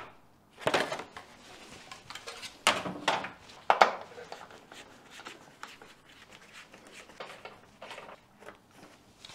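Sharp plastic clicks and knocks as a number plate is pried off its snap-in plastic holder on a car's front bumper, the loudest about a second in and around three to four seconds in, followed by fainter taps and scrapes as a screwdriver works on the holder's screws.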